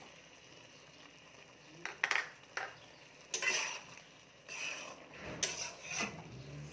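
A spatula clinking and scraping against a cooking pot as paneer cubes are stirred into a thick vegetable curry. It begins about two seconds in as a run of separate knocks and scrapes.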